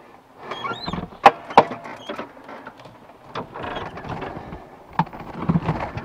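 Handling noises inside a John Deere tractor cab as someone climbs in and settles: a short rising squeak just under a second in, then sharp clicks and knocks from the cab's door and fittings, a few of them loud.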